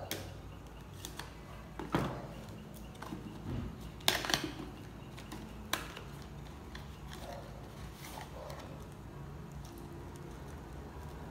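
A small cardboard accessory box being slit open with a blade and its packaging handled: scattered clicks, crinkles and rustles of card and plastic, the loudest cluster a little past the middle.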